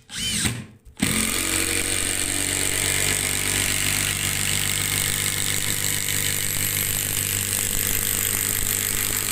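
Makita TD173D cordless impact driver driving a 200 mm screw, its impact mechanism hammering steadily. It starts about a second in after a couple of brief blips and keeps going without a break.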